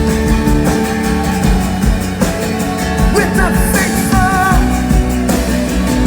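Live rock band playing, with steady bass and sustained chords under a melody line that slides and then wavers about three to four seconds in.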